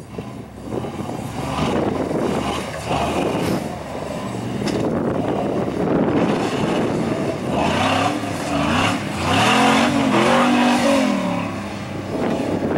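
Rock buggy engine revving under load as it crawls and climbs, its revs swinging up and down several times in the last few seconds.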